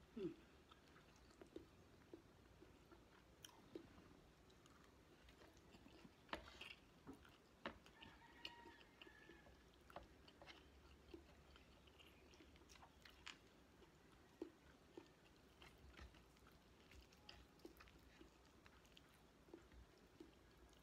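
Faint chewing and mouth sounds of a person eating chicken and rice by hand, with scattered soft clicks.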